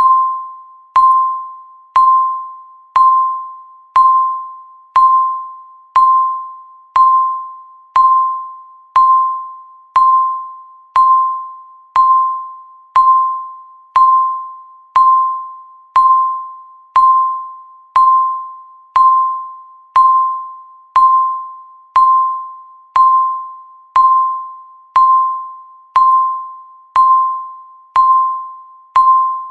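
Countdown timer's chime: a single bell-like tone, the same pitch each time, struck once a second and dying away before the next strike.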